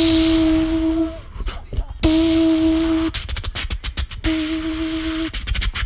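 Beatboxing: three held, humming tones at one steady pitch, each about a second long, over a low rumble and hiss, with quick runs of sharp clicks between them.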